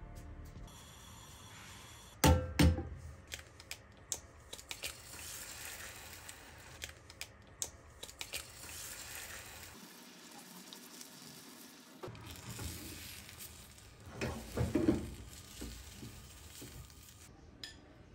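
Eggs sizzling in a nonstick frying pan while being stirred with a spatula, with clicks and clatter of cookware throughout and two loud knocks a couple of seconds in and more loud clatter near fifteen seconds.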